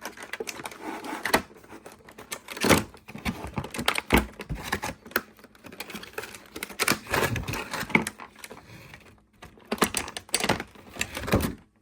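Klein Tools 90-tooth ratcheting box wrench clicking rapidly as its ratchet is worked back and forth, with a few louder metal knocks of the wrench being handled.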